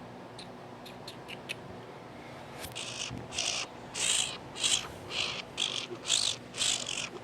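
An animal's short, high-pitched chirping calls, repeated about twice a second from a few seconds in, with a few faint ticks before them.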